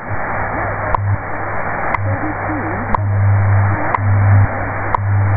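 WWV/WWVH shortwave time signal on 10 MHz heard through an AM receiver: a short tick every second over steady static hiss. Under the ticks is a low hum that comes and goes in pulses of different lengths, the 100 Hz time-code subcarrier. There is no tone between the ticks in this part of the minute.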